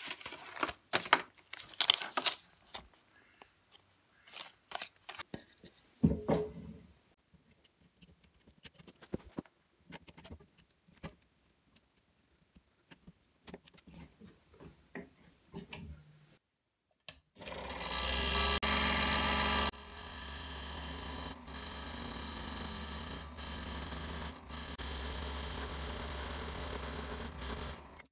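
Small clicks and rustles of a scroll saw blade being taken from its packet and clamped in. Then, at about 17 seconds, an Excalibur scroll saw switches on and runs steadily, a little louder for its first two seconds.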